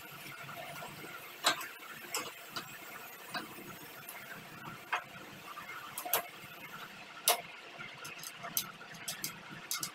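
Sharp metal clicks and knocks of a motorcycle rear shock absorber being handled and seated onto its mounting studs, scattered irregularly, the loudest about a second and a half in and again about seven seconds in, over a steady faint background noise.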